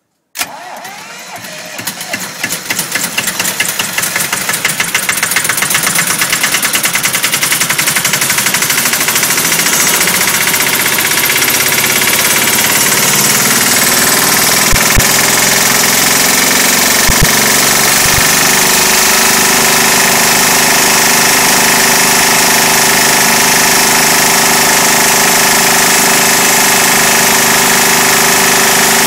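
Hatz E95 air-cooled diesel engine started with its electric starter. It catches about half a second in, fires unevenly as it gathers speed over the next few seconds, then runs steadily.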